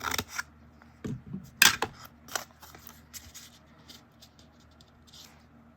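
Scissors cutting through paper: several sharp snips in the first two and a half seconds, then a few fainter light ticks.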